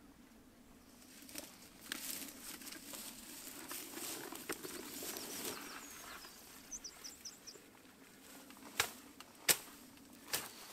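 Rustling and swishing of dry grass and reeds as someone moves through them, with scattered clicks and several sharp snaps near the end. A small bird chirps a few quick notes partway through.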